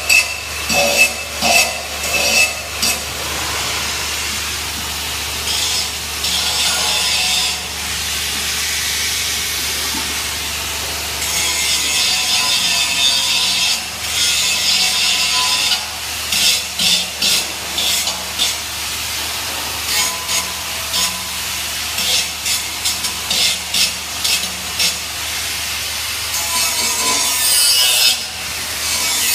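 Flux-cored arc welding: the arc's steady crackling hiss, broken in places by runs of short, choppy bursts.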